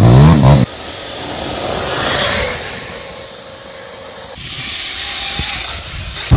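Sur-Ron electric dirt bike riding: a thin, high motor whine over a steady hiss of tyres and wind. The sound changes abruptly about four seconds in, as it cuts to another riding clip.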